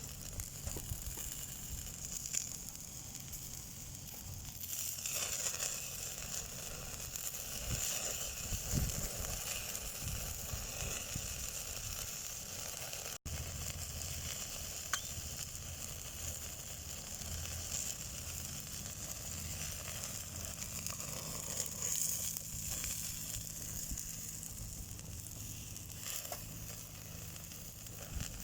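Food sizzling on a grill over a charcoal fire, with light scattered crackling from the burning coals.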